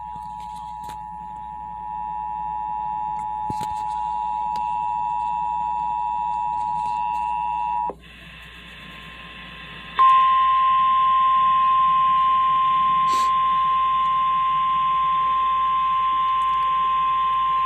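Emergency Alert System attention signal: the steady two-tone alarm (853 and 960 Hz) holds for about eight seconds and then cuts off. After a two-second gap, a louder single steady tone near 1050 Hz, the NOAA Weather Radio warning alarm, starts and continues. The tones announce a new severe thunderstorm warning message.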